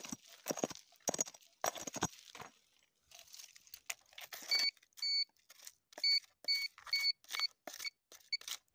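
Soil and small stones scraping and rattling as the hole is dug by hand, then an orange handheld metal-detector pinpointer probed into the hole, giving short, high, irregularly spaced beeps from about four and a half seconds in: the pinpointer signalling metal in the hole.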